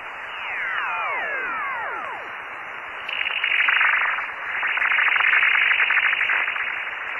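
Yaesu FT-950 receiver on the 10 meter band: static hiss with several whistles gliding down together in the first two seconds, then a loud rushing buzz of rapid pulses from about three seconds in. These are unidentified signals that were also heard elsewhere in Europe, so they are not local interference.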